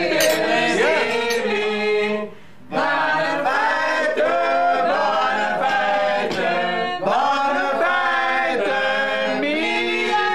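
A group of men and women singing a birthday song together without accompaniment, with a brief pause about two seconds in.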